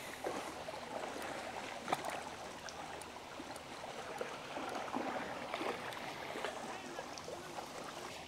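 A hooked bream splashing at the water's surface as it is drawn into a landing net, with water sloshing and many small splashes; one sharper splash about two seconds in. Water drips back into the water near the end as the net is lifted.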